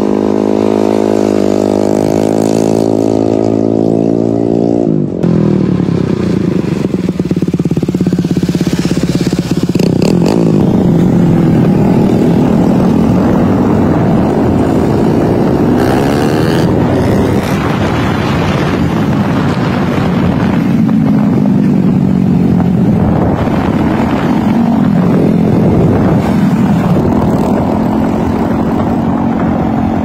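Motorcycle engine running and revving as the bike is ridden past. It holds a steady note for the first few seconds, drops suddenly about five seconds in, then rises and falls in pitch again and again with the throttle.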